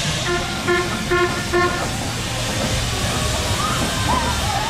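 A steam traction engine passing close by with a steady low rumble, and four short, pitched toots in quick succession in the first two seconds. A voice calls out near the end.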